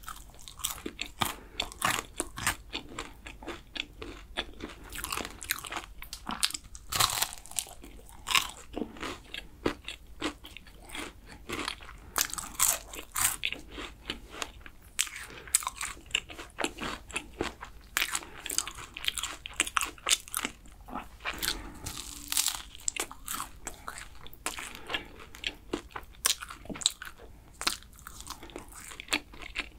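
Close-miked biting and chewing of flaky, caramelized kouign-amann pastry: a dense, continuous run of crisp crunches and crackles as the layers break.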